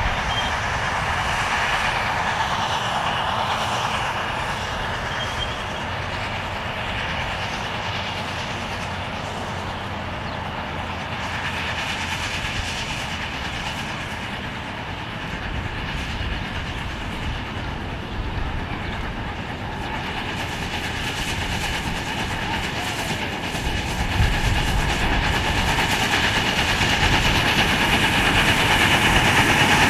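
7.25-inch gauge live steam Union Pacific Big Boy model locomotive and its freight wagons running on the track, wheels rolling on the rails, getting louder over the last few seconds.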